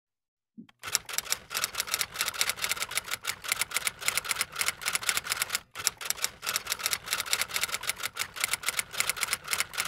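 Rapid clatter of typing on keys, many strikes a second, starting about a second in, with a brief pause around the middle.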